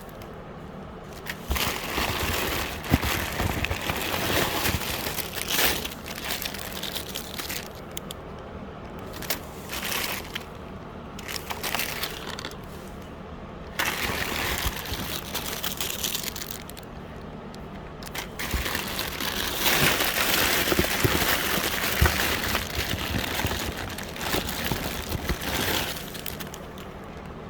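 Rummaging through a box of fashion jewelry: stretches of rustling and crinkling lasting a few seconds at a time, with small clicks, broken by short lulls.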